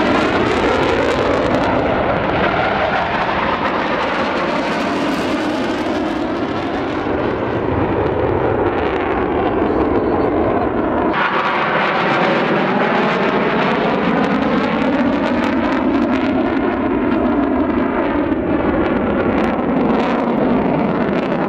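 Jet aircraft flying past, a loud steady rush of engine noise that shifts in tone as they pass; the sound changes abruptly about eleven seconds in, at a cut to another pass.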